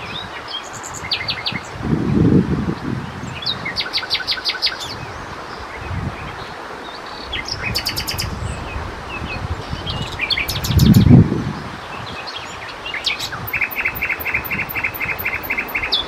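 Common nightingale singing in separate phrases of rapidly repeated notes, ending with a long run of repeated notes near the end. Two low rumbles come through, the louder one about eleven seconds in.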